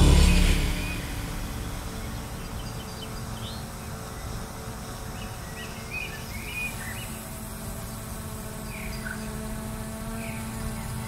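A motor vehicle goes past loudly right at the start, its engine note rising as it nears. After it comes a steady low hum, with birds chirping repeatedly over it from about three seconds in.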